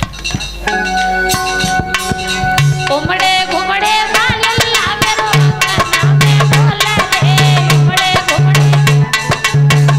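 A woman sings a jachcha geet, a folk song for a newborn, over quick hand-drum strokes and repeated steady low notes; her voice comes in about three seconds in.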